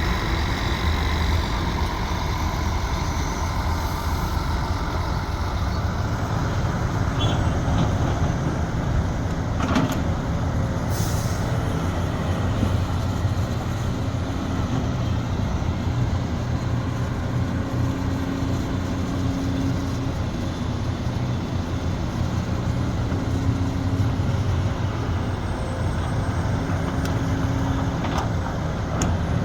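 Sumitomo SH370LHD-6 excavator's diesel engine running steadily under work, with a higher tone that comes and goes several times. A sharp knock sounds about ten seconds in, and another near the end.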